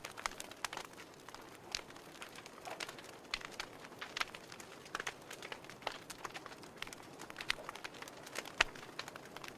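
Wood fire crackling: irregular sharp pops and snaps over a faint steady hiss, one louder pop about nine seconds in.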